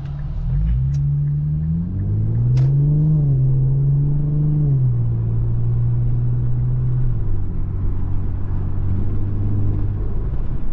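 Infiniti Q50's turbocharged engine pulling under acceleration: its note climbs for about two seconds, holds, then drops back in two steps and settles into a steady cruise. A single sharp click comes a little over two seconds in.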